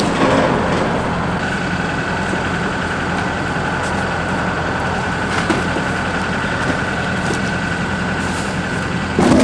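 An engine running steadily with a low hum, joined by a thin steady high whine from about a second and a half in.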